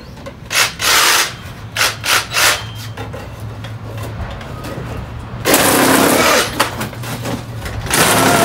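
Handheld cordless power tool cutting through a cardboard box in rasping bursts: several short cuts, then a longer one lasting over a second about halfway through, and another near the end.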